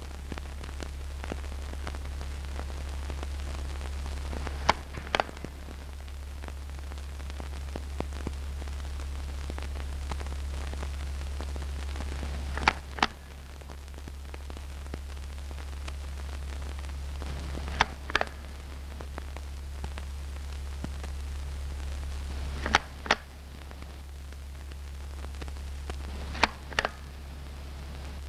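Steady low hum and hiss from an old film soundtrack. About every five seconds a pair of sharp clicks breaks in, five pairs in all.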